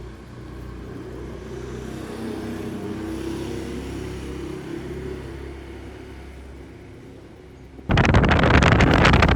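A vehicle passing by, swelling and then fading away. About eight seconds in, a sudden loud rush of wind noise on the microphone.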